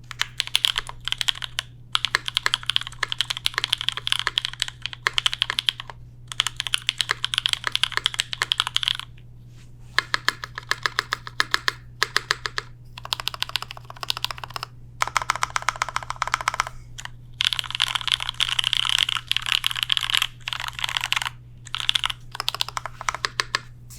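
J-02 custom mechanical keyboard with lubed AEBoards Raeds switches, a carbon fiber plate and GMK keycaps, typed on fast in bursts of rapid keystrokes with short pauses between them. A faint steady low hum sits underneath.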